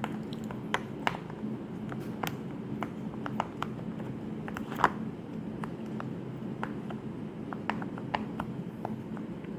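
Silicone pop-it fidget bubbles being pressed quickly, giving irregular soft popping clicks a few times a second over a steady low background hum.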